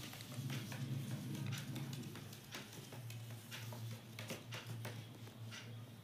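An Indian ringneck parakeet's feet tapping and scratching on wooden boards as it steps about: a scattering of irregular sharp clicks, over a steady low hum.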